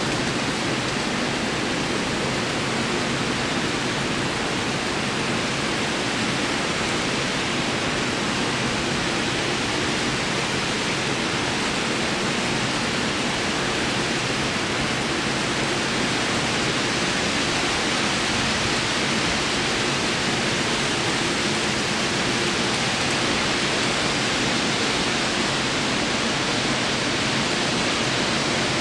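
Steady, even rushing noise with a faint low hum underneath, unchanging throughout.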